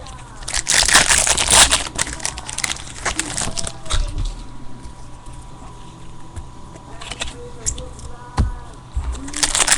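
Foil baseball card pack wrappers being torn open and crinkled, in two dense bursts of crackling about half a second in and near the end, with scattered rustles and clicks of cards being handled in between.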